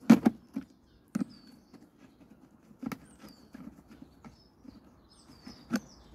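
A few sharp clicks and knocks of a screwdriver and fingers on the plastic housing of a Flymo hover mower as its screws are undone, the loudest right at the start. Faint bird chirps in the background.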